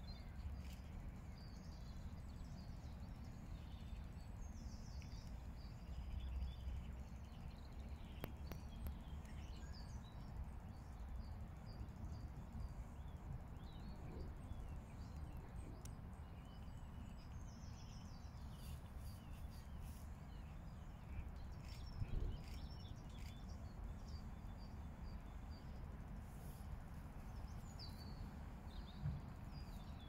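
Faint birdsong: small birds chirping and twittering in short, high phrases scattered throughout, over a steady low background rumble. A soft low thump comes about two-thirds of the way through.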